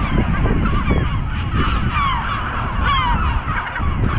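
A flock of gulls calling over and over, many short falling cries overlapping, over a steady low rumble.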